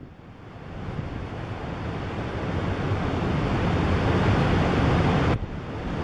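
Heavy ocean surf breaking in a continuous roar that builds over the first few seconds, with wind buffeting the microphone.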